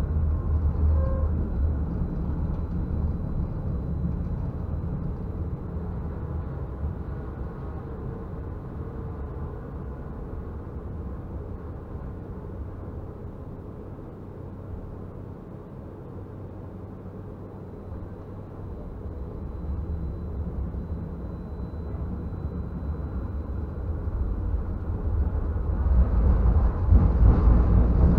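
Stadler Variobahn low-floor tram running along its track with a steady low rumble. The rumble dies down toward the middle and grows again through the second half as the tram picks up speed, turning louder and harsher near the end.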